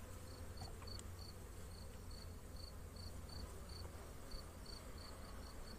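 A cricket chirping in short, even pulses, about three a second, over the faint hum of honeybees from the open hive.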